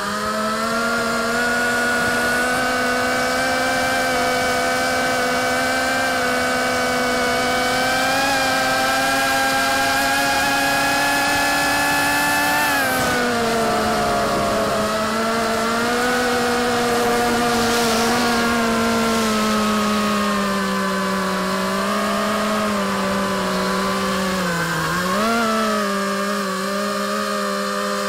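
FPV quadcopter's electric motors and propellers, heard through its onboard camera: a steady multi-pitched whine that climbs slowly with throttle, drops about halfway through, then dips and jumps briefly near the end.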